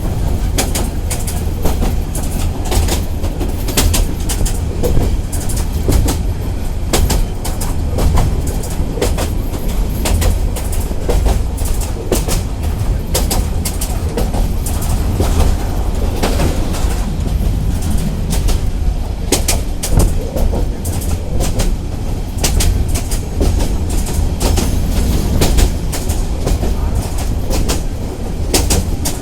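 A train running on the rails: a steady low rumble with frequent, irregular sharp clacks of the wheels over the track.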